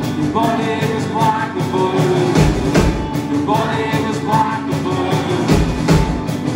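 Indie rock band playing live: electric guitars, bass guitar and drum kit in an instrumental stretch, a short guitar figure repeating over the beat.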